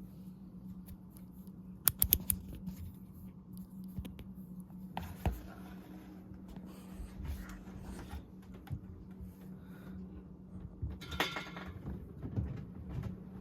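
Casablanca Slumber 3 ceiling fan running on high with a steady motor hum. A few sharp clicks come about two seconds in, and a brief rattle near the end.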